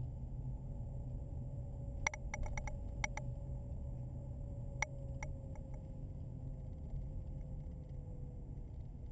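Road and engine noise heard inside a moving car's cabin: a steady low rumble with a faint tone easing slowly down in pitch. A quick cluster of sharp clicks or rattles comes about two seconds in, with a few more about five seconds in.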